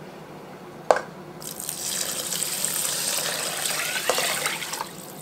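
Chicken broth poured in a steady stream from a glass pitcher into a rice cooker's metal inner pot over rice, a splashing pour of about three and a half seconds that stops near the end. A light knock comes about a second in, before the pour starts.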